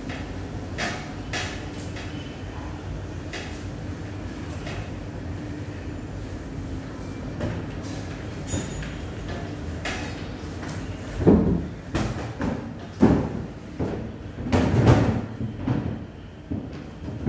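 Flat particleboard cabinet panels knocking and thudding against the wooden cabinet frame as a panel is handled and laid in place, several loud knocks in the second half, over a steady low hum.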